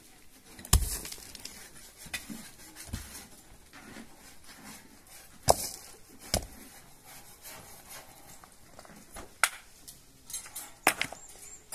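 Scattered sharp knocks and clinks of objects being handled, about five in all, two of them with a heavier thump, over faint background noise.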